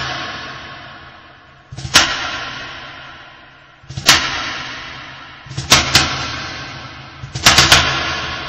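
Heavy, echoing percussion hits open a music track. The hits come about every two seconds, each ringing out slowly. Near the end they come faster, in a quick run of several hits.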